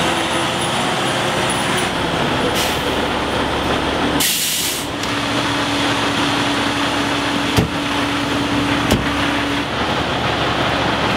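Fire engine's diesel running, with a sharp hiss of its air brakes releasing about four seconds in. Later a steady tone sounds for a few seconds and two short knocks come, as the cab doors are worked.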